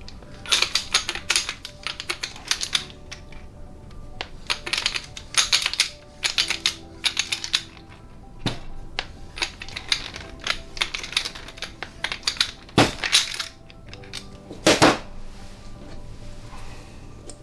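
Hand ratchet clicking in quick short bursts, over and over, while working a nut or die along a freshly welded rocker stud to clean up its threads.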